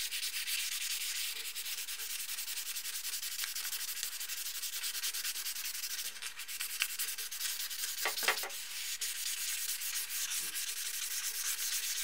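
Sandpaper rubbed back and forth by hand along a wooden axe handle, a steady scratchy hiss, with a short knock about eight seconds in.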